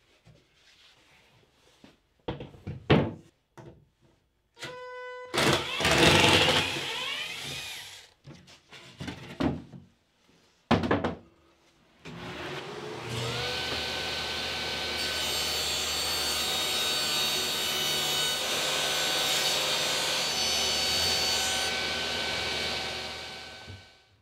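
Plywood panels knocking and scraping as a sheet is pulled from a rack, then a sharp thump as it is set down. A table saw then spins up and runs steadily with a whine, winding down near the end.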